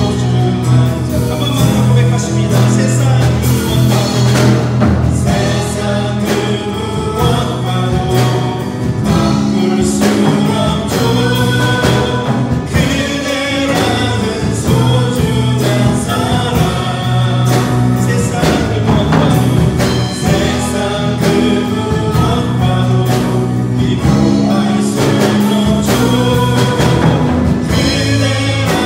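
Live worship band playing a praise song sung in Korean: singers over acoustic guitar, drum kit, bass guitar and piano.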